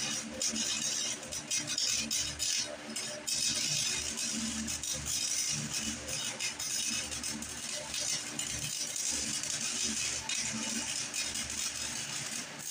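Electric welding arc crackling and sizzling steadily as a weld is laid on the steel frame of a 1967 Jacobsen Chief garden tractor, over a steady low hum.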